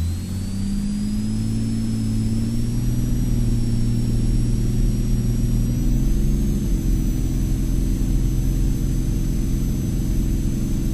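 Cirrus SR22T's turbocharged six-cylinder piston engine and propeller going up to full takeoff power. The pitch climbs over the first couple of seconds, then the engine runs loud and steady.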